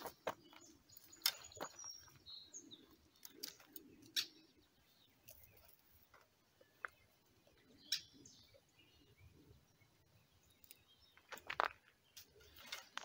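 Quiet outdoor air with scattered brief bird chirps, and occasional sharp clicks and soft rustles as wet weed is pulled out of a landing net by hand.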